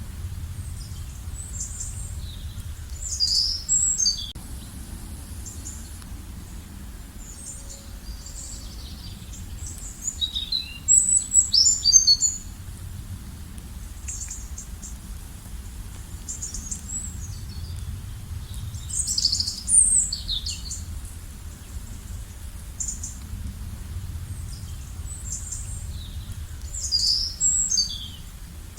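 Songbirds singing: short bursts of high, quick chirps and trills about every eight seconds, the loudest about twelve seconds in, over a steady low rumble of outdoor background noise.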